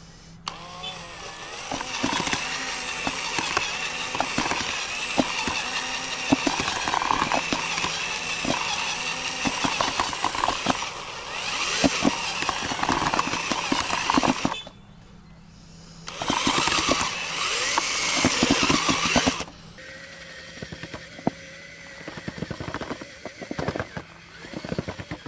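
Cordless drill with a mixer paddle running in a bucket of damp fishing groundbait, churning the mix with many small gritty knocks. It stops briefly about halfway through, runs hard again for a few seconds, then runs more quietly near the end.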